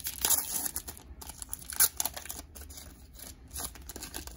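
Foil wrapper of a Panini Prestige football card pack being torn open and crinkled by hand, a run of irregular crackles with one sharper, louder crackle a little under two seconds in.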